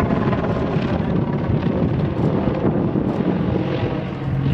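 Helicopter flying overhead, its rotor and turbine noise steady, with wind buffeting the microphone.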